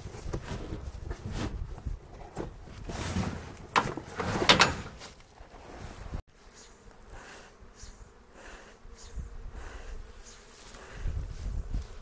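Honey bees buzzing around an open hive, over low wind rumble and rustling, with a louder burst about four and a half seconds in. The sound cuts off abruptly about six seconds in and resumes more quietly.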